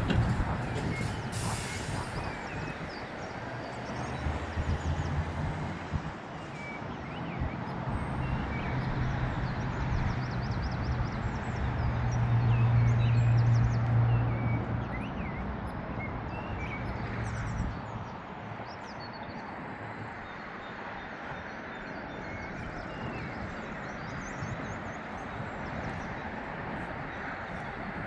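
A road vehicle's engine hum that builds to its loudest about halfway through and dies away about two-thirds of the way in, over outdoor road ambience. Small birds chirp, heard more plainly once the engine has faded.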